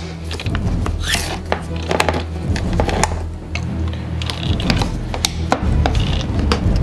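Hand-cranked can opener working around the rim of a large metal can: a run of short clicks and metallic scrapes, over background music.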